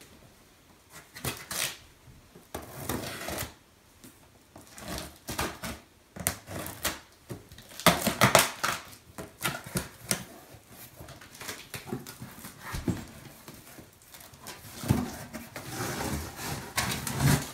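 A cardboard shipping box being cut open and handled: irregular scraping, slicing and rustling of cardboard, loudest about eight seconds in.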